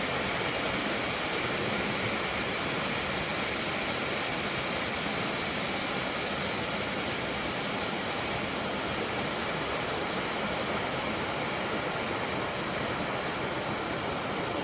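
Creek water rushing over rocks, a steady even hiss.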